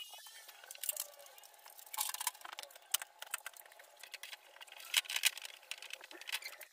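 Household cleaning sounds: scattered light clicks and rustles from a cloth wiping a computer case and desk and a duster being swept over furniture, with a few sharper clicks about two and five seconds in.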